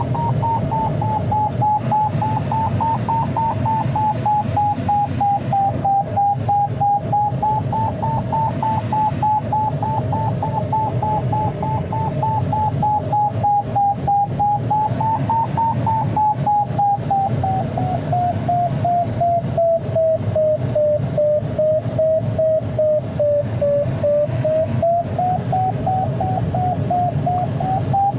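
Electronic variometer in an ASK 21 glider cockpit giving a pulsing tone whose pitch drifts slowly: it sinks lower past the middle and climbs back near the end, following the changing rate of climb. A steady low rush of airflow over the canopy runs underneath.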